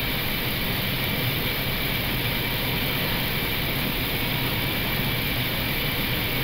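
Steady rush of airflow and engine noise inside an Airbus A321's cockpit on short final approach, about 200 feet above the runway. A faint thin high tone runs through it.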